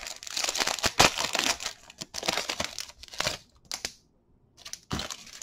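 Plastic wrapper of a 2019 Bowman Chrome baseball card pack being torn open and crinkled: about two seconds of crackling, then several shorter crinkles.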